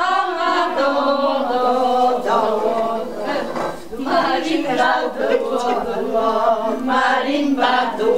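A group of older women singing a repetitive chant-like song a cappella, the phrases repeating with short breaks between them.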